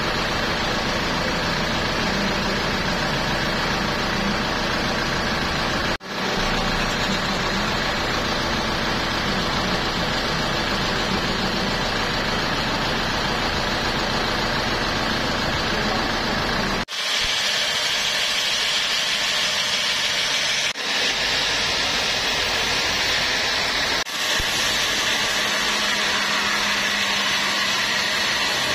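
Band sawmill machinery running steadily with a low engine hum, broken off abruptly a few times. About halfway through, the low rumble drops away and a higher, hissier sound takes over as the band saw blade runs through a teak log.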